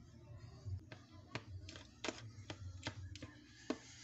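A metal spoon stirring wet rice and dog kibble in a bowl, knocking against the bowl in a run of irregular light taps that start about a second in.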